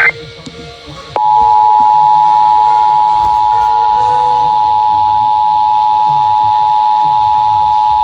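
Emergency Alert System attention signal: two steady tones (853 and 960 Hz) sounding together, starting about a second in and holding without a break. It is the alert tone of a required monthly EAS test.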